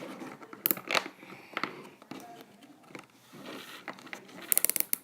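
Plastic zip tie being handled and threaded, with a few sharp clicks, then pulled tight through its ratchet in a quick run of clicks near the end.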